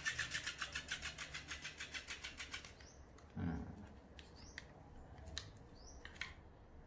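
Battery motor unit of an electric flopping-fish cat toy running outside its fabric body, a rapid even clicking about eight times a second that fades and stops a little under three seconds in.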